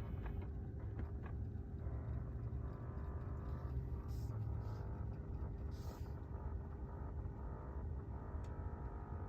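HVAC system running: a steady low rumble with a steady hum above it.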